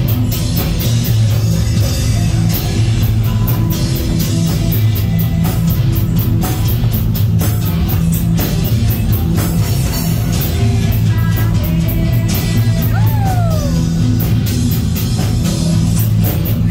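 Rock music played loudly over a PA, with heavy bass, a steady drum beat and guitar. About thirteen seconds in, a high note slides down in pitch.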